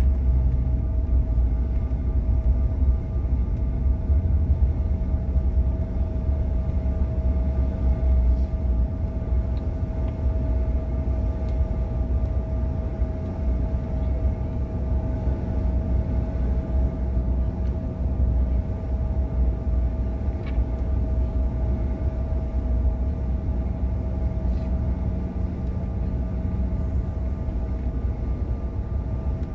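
Cabin noise inside a Bombardier CRJ900 taxiing: its rear-mounted GE CF34 turbofans at low taxi power give a steady low rumble with a steady whine over it.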